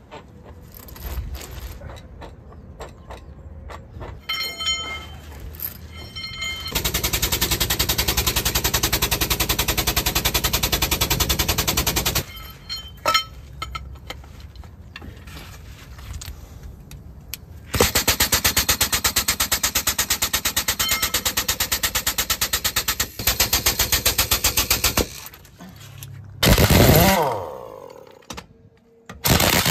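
Compressed-air tools at work on a light truck's wheel: two long runs of loud, rapid rattling, about five and seven seconds long. Near the end comes a pneumatic impact wrench on the lug nuts, with two short whines that rise and fall in pitch.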